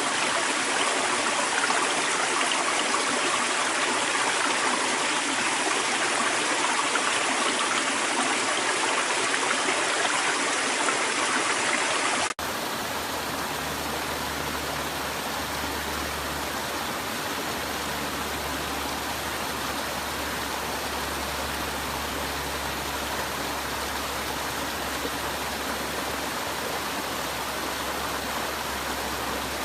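Stream water flowing and rushing steadily. About twelve seconds in it cuts abruptly to a different, slightly quieter stream recording with a steady low rumble underneath.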